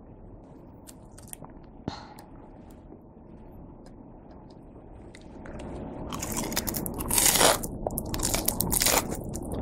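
Crispy breaded cheese pork cutlet (cheese tonkatsu) crunching loudly as it is bitten and chewed, starting about six seconds in as a run of rapid crunches. Before that it is quiet apart from a single light click about two seconds in.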